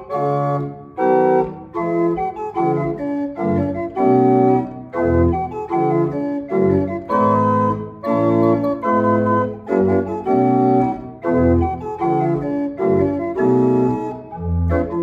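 Small Sauer pipe organ played on its keyboard, improvising on Christmas carols: chords over a moving bass line, in a steady run of short notes and phrases.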